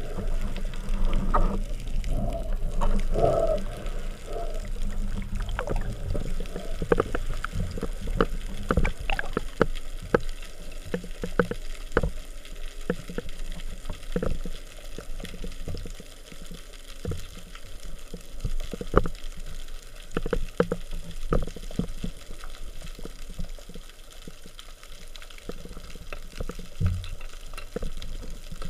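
Underwater sound picked up by a camera mounted on a speargun: a steady low water rush with irregular sharp clicks and knocks as the gun, line and speared fish are handled.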